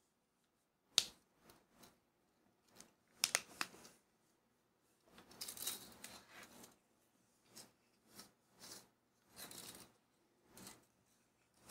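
Nylon paracord being handled and slid across a tabletop beside a tape measure: scattered faint rustles and light ticks, with a sharp click about a second in.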